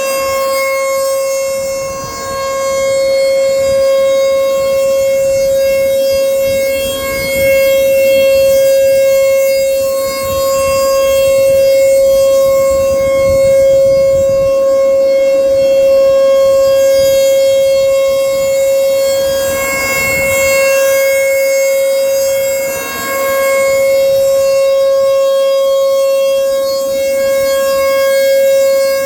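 Outdoor tornado siren sounding its scheduled test signal: one loud, steady held tone that does not rise or fall in pitch. Its loudness swells and dips every few seconds.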